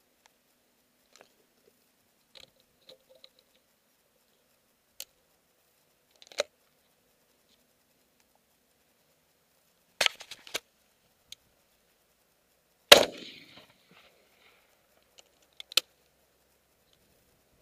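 A string of sharp clicks and knocks close to the microphone, spaced irregularly with quiet between them. The loudest comes about thirteen seconds in and rings on briefly.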